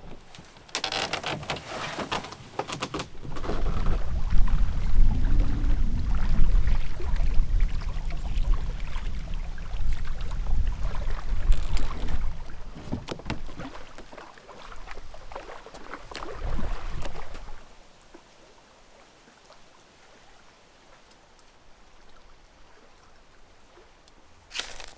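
Canoe being handled at a rocky shore: knocks and scrapes of the hull, then a long, deep rumble as it is set down and moved into the water, with more scattered knocks of gear being loaded. The last several seconds are quiet.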